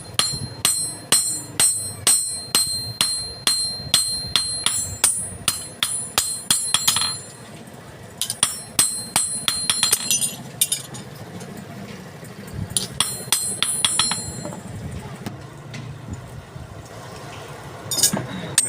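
A hand hammer striking metal on an anvil, each blow ringing, about two or three blows a second for several seconds. After a pause come shorter runs of blows, and a last few strikes near the end.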